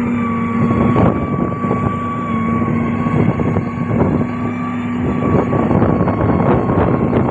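Heavy road-construction machine running steadily, its engine giving a constant drone with a steady whine above it, while irregular knocks and crackles come through, getting denser near the end.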